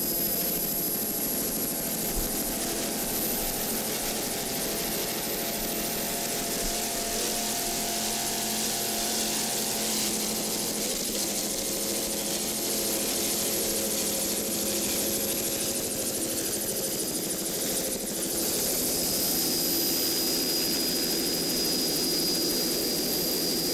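Helicopter engine and rotor running steadily, with a constant high-pitched whine over the hum; it grows a little louder about eighteen seconds in.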